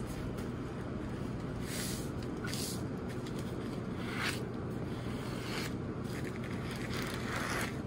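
Parchment paper being folded and creased by hand against a stainless steel table: several short papery swishes and scrapes, over a steady low hum.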